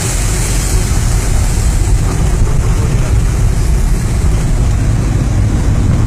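Heavy water pouring from the hillside onto the road and the vehicle, heard from inside the vehicle as a loud, steady rushing with a deep rumble.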